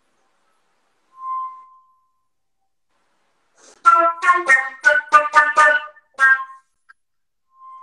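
Concert flute playing contemporary music: one soft held note about a second in, then from about four seconds a quick run of about eight sharply attacked notes, each sounding several pitches at once, and a faint short note near the end.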